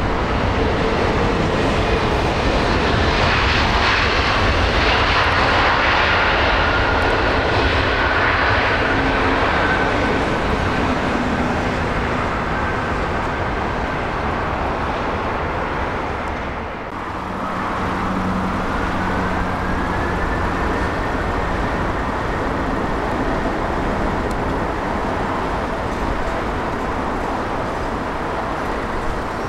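Jet airliner engines: an Airbus A320-family jet rolling out on the runway after landing, a loud steady rush. After a short dip about 17 seconds in, a second airliner comes in on approach, its engine whine rising in pitch.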